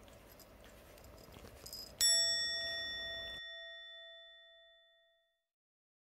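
A single bright chime sound effect struck about two seconds in, ringing with clear overtones and fading away over about three seconds. Before it, faint room tone, which cuts off abruptly as the chime rings.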